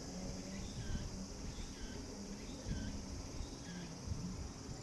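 Outdoor insect chorus: a steady high-pitched drone of calling insects, with a short chirping note repeating about twice a second and a low rumble underneath.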